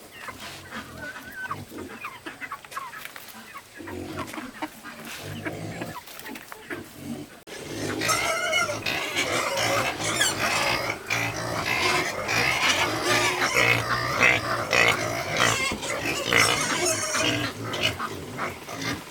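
Farm animals calling, with a sudden jump about seven seconds in to a louder, busier stretch.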